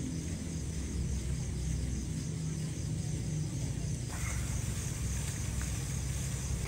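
Soft background music with low held notes.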